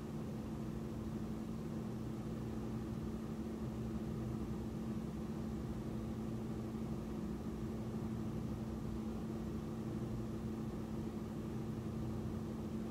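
A steady low hum with a light hiss, unchanging throughout.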